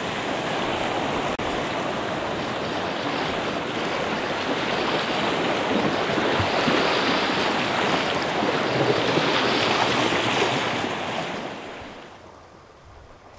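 Steady loud rush of wind and water, which fades down sharply near the end.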